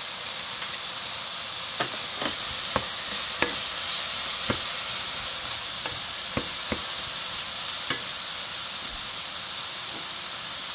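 Sliced mushrooms and onion sizzling in oil and melting margarine in a hot skillet, stirred with a wooden spoon that knocks against the pan about a dozen times.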